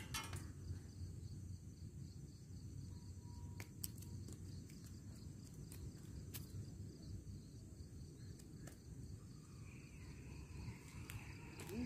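Insects chirring in a steady, faint high drone over a low steady rumble, with a few sharp clicks scattered through it.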